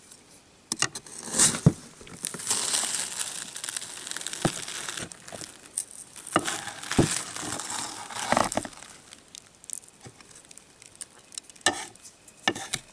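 Crinkling, crunching and tearing as a large baked s'more of graham cracker, chocolate and marshmallow is broken apart by hand, with scattered sharp knocks and taps.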